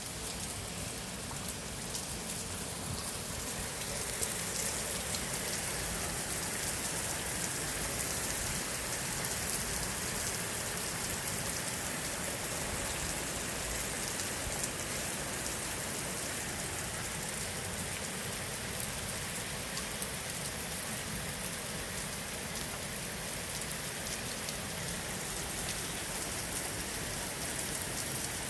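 Steady rain falling: an even hiss dotted with many small drop ticks, getting a little heavier a few seconds in.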